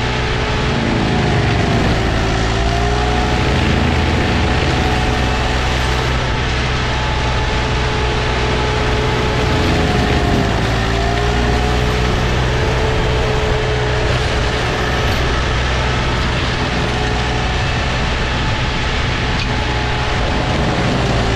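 Green Climber LV600 remote-controlled slope mower's Kohler engine running hard, its mulching head spinning as it chews into brush and small trees. A higher whine dips briefly in pitch about two seconds in, again about eleven seconds in and near the end, as the head takes load.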